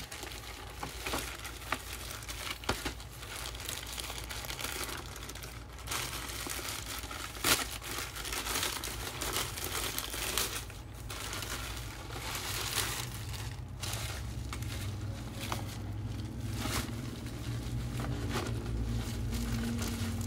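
A plastic courier mailer crinkling and being torn open by hand, then bubble wrap rustling as the package inside is handled. The crackles come irregularly, with a sharp click about seven and a half seconds in.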